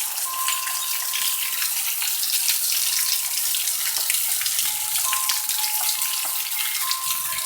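Very heavy thunderstorm rain pouring down: a dense, steady hiss of countless drops striking the ground. A faint thin whistle comes and goes through it.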